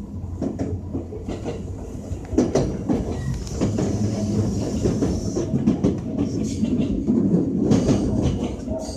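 JR West 225-5000 series electric train running, heard from inside the car: a steady low rumble with many short wheel clicks over the rail, getting louder about two and a half seconds in.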